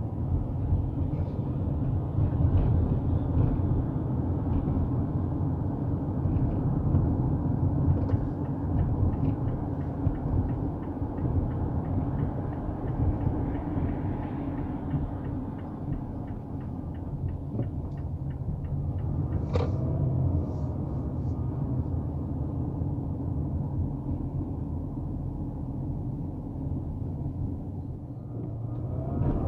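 Steady low rumble of a car's engine and tyres heard from inside the cabin while driving on city streets. A run of faint, evenly spaced ticks comes past the middle, and a single sharp click about two-thirds of the way through.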